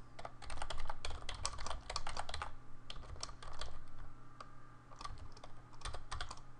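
Typing on a computer keyboard: a fast run of keystrokes for about two and a half seconds, then slower, scattered keystrokes.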